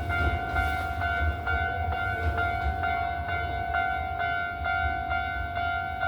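Japanese railway level-crossing warning bell ringing its electronic two-tone "kan-kan", about two strokes a second, the signal that the crossing is closed for a train. A low rumble of a passing train runs underneath.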